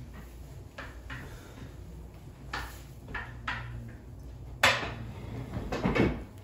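Household knocks and kitchen clatter, like pans and cupboards: scattered small clicks, one sharp knock a little over halfway through, and a louder rustling noise near the end, over a low steady hum.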